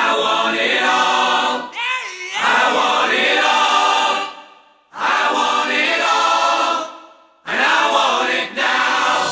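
Choir singing long held chords in three phrases, each fading away before the next begins, with a sliding vocal line about two seconds in.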